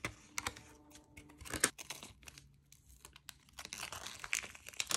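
Clear plastic wrapper crinkling and tearing as it is peeled off a strip of Green Stuff two-part epoxy sculpting putty, with scattered sharp clicks from the handled packaging. The crinkling grows busier about three and a half seconds in and runs on until near the end.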